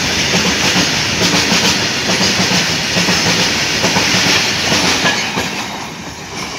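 Indian Railways freight train's wagons passing at speed close by, their wheels clattering over the rails. The noise eases off near the end as the brake van at the tail goes by and the train draws away.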